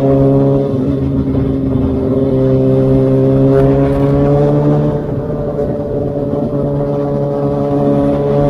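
Engine of a 2019 Kawasaki Ninja ZX-6R, an inline-four breathing through an Austin Racing aftermarket exhaust, running in one gear at a steady road speed. Its note sags slightly in pitch over the first few seconds, then climbs a little near the end.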